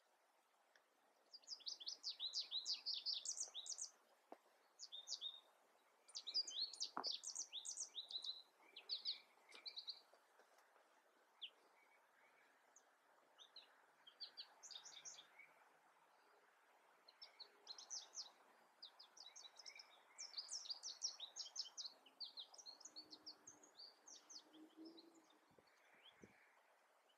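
Wild songbirds singing in bouts of rapid, high chirping notes, each run lasting a few seconds with pauses between.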